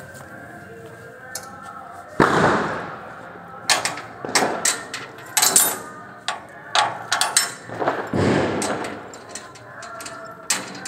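Diwali firecrackers going off. A loud bang comes about two seconds in and another near eight seconds, with a scatter of sharper cracks between, each trailing off in an echo.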